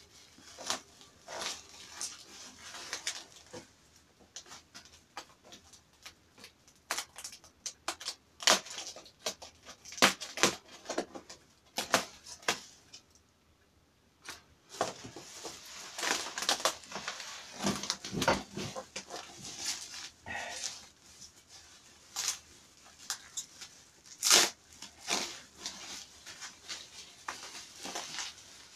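Plastic bubble wrap crinkling and crackling as it is handled and pulled out of a cardboard box, an irregular run of sharp crackles with a short pause about halfway.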